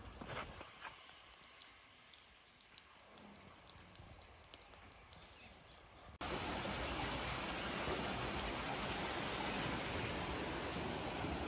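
Quiet outdoor air with a few short high chirps and scattered clicks. About six seconds in, a sudden cut brings in the steady rush of a small stream running through a narrow stone-lined channel.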